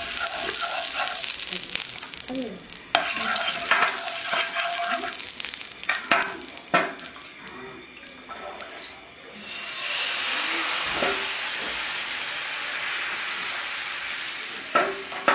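Thin rice-flour batter for a patishapta crepe sizzling on a hot pan, in loud hissing stretches. A few sharp knocks of a utensil against the pan come in a quieter spell near the middle.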